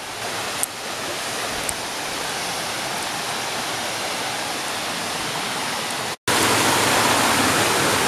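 Waterfall and rocky stream: steady rushing of water cascading over rocks. A brief break about six seconds in is followed by louder, closer rushing water.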